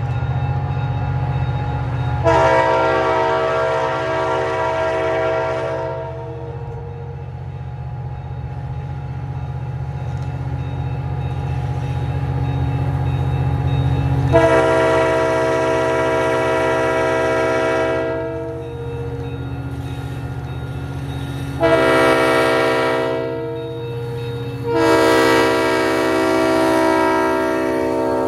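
GP40-2LW diesel locomotive's RS5T multi-chime air horn sounding the grade-crossing signal: two long blasts, a short one, then a final long blast held as the locomotive reaches the crossing. The low, steady rumble of its diesel engine runs underneath.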